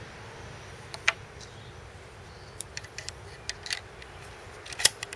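Scattered small metal clicks and knocks as the five-round detachable box magazine of a Savage Model 19 .22 rifle is handled and fitted into the rifle, with the sharpest click a little before the end as it locks into place.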